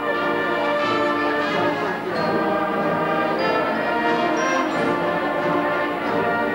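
Band music with brass instruments playing held chords.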